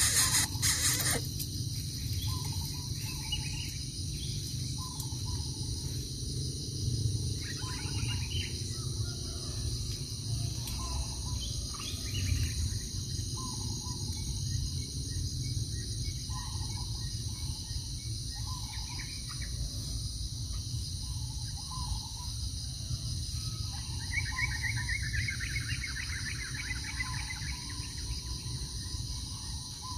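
Outdoor nature sound: a bird gives short calls repeated every second or two, and a faster, higher trill comes in briefly about 24 seconds in. Under it runs a steady, high-pitched drone of insects.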